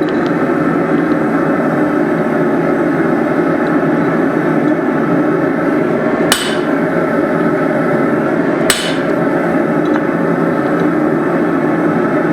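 Two sharp hammer blows on hot steel tooling, about two and a half seconds apart, each with a brief high metallic ring, over a steady, loud rushing noise.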